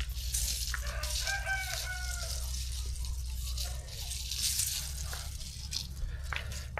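A rooster crowing once, about a second in, with one call of about a second and a half, over a steady high hiss.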